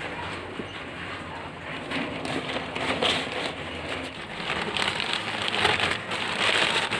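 Gritty patter and scraping of potting soil, a mix of sand, compost and clay, being scooped and poured into a black plastic polybag, with the plastic rustling. The pouring is heaviest about three seconds in and again near the end.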